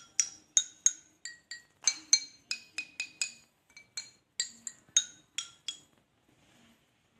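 Pieces of rubber wood charcoal knocked together in a quick series of about eighteen sharp clinks, roughly three a second, stopping about six seconds in. Each clink rings briefly at a high, glassy pitch that differs from strike to strike; a clear metallic ring like this is the sign of dense, well-carbonised, good-quality charcoal.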